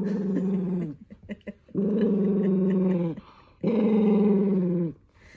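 Toy poodle growling: three long, steady growls of about a second each with short breaks between, an angry protest as its paw is handled to put on a sock.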